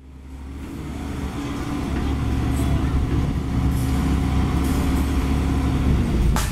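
Komatsu PC130 hydraulic excavator's four-cylinder diesel engine running steadily under load while it digs and loads soil, a constant low hum under the engine sound. A sharp click near the end.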